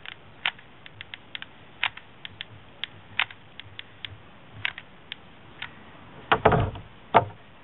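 Hot glue gun trigger clicking irregularly as hot glue is squeezed onto a wooden block, with a louder clunk about six seconds in and one last click just after.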